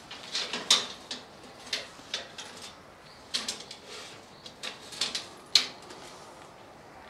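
Light clicks and knocks, about ten scattered over five or six seconds, of freshly bent 13 mm steel arch pipes being handled, knocking against each other and against the bending form. The loudest come about a second in and near the end.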